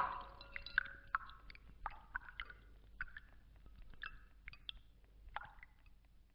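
A splash into a glass of water right at the start, followed by faint, scattered small clicks and drips in the glass, about a dozen spread over the next six seconds.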